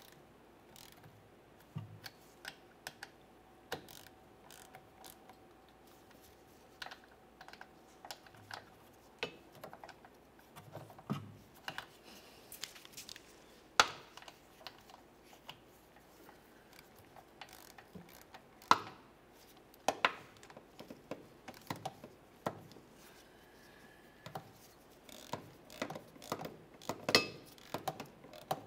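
Hand ratchet clicking in short runs, with tools knocking on metal and a few sharper, louder clicks, as the mounting bolts of a new transfer case shift motor are tightened down to torque.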